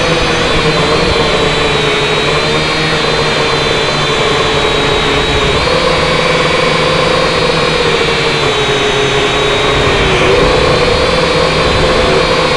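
M:TECH Sky Drone Plus toy quadcopter in flight, its electric motors and propellers giving a loud, steady whine. The pitch shifts a little up and down a few times, stepping up about five and a half seconds in and dipping then rising again near ten seconds.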